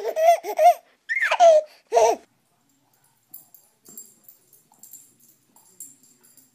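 High-pitched laughter in three short bursts, one with a falling squeal, over the first two seconds, then faint irregular clicking.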